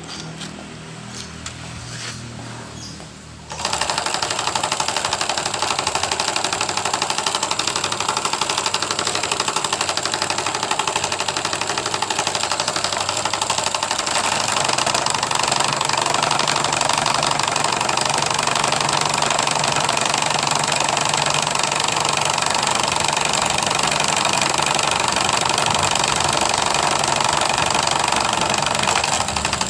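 Homemade saw driven by a water-pump electric motor starts suddenly about three and a half seconds in and runs loudly and steadily with a rapid pulsing rattle.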